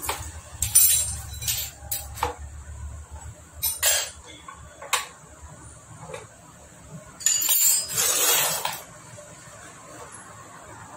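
Steel screwdriver clinking and scraping against the metal cylinder head and valve gear of a Honda Activa scooter engine: a few sharp separate clinks, then a louder run of clinking and scraping for about a second and a half near the end.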